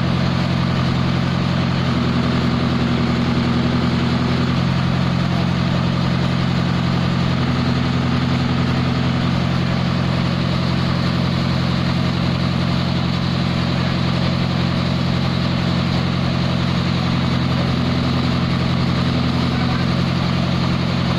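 Diesel engine of a JCB pick-and-carry mobile crane running steadily at idle, a continuous low engine drone.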